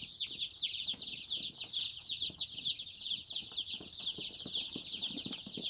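A crowd of day-old joper chicks peeping continuously, many high, short, falling peeps overlapping into one dense chorus, with faint taps underneath.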